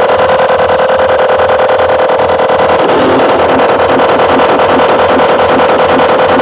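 Large outdoor PA sound system blasting a loud, steady, engine-like buzzing drone with a fast flutter, cut in abruptly in place of the music. About three seconds in, a lower rhythmic pulsing throb joins it.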